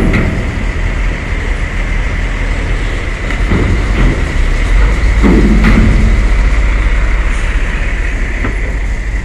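Heavy diesel trucks driving onto a ferry over steel ramp plates and deck grating: a steady low engine and tyre rumble, swelling about three and five seconds in, with a few sharp metal knocks and a steady high whine underneath.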